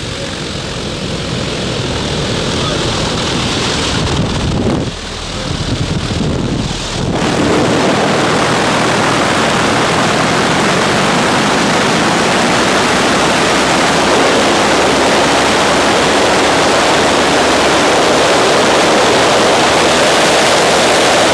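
Wind rushing over the microphone in a skydive freefall. It is uneven, with a deep rumble, for the first several seconds, then loud and steady.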